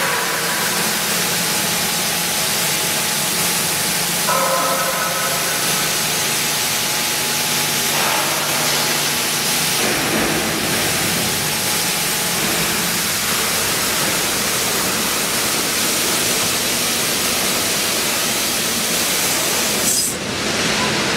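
Fiber laser cutter slicing through 20 mm carbon steel plate: a steady, loud hiss of the assist-gas jet and the cut, dipping briefly near the end.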